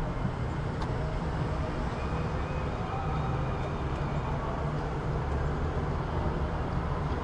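City street ambience: a steady rumble of road traffic with vehicles running past.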